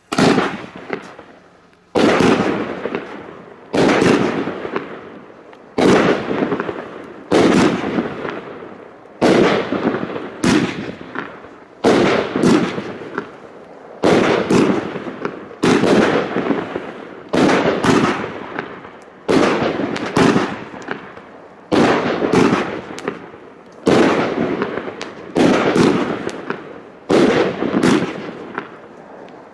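Argento 'Valentin' 25-shot, 30 mm firework battery firing: a shot about every two seconds, each a sharp bang that trails off in a fading hiss before the next.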